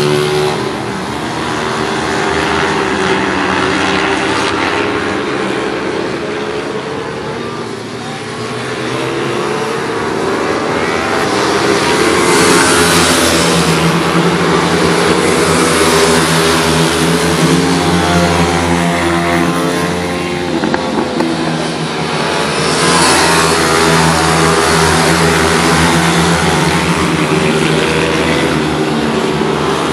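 Several single-cylinder pit bike engines racing at once, revving up and down in overlapping pitches as the riders accelerate and shift through the corners.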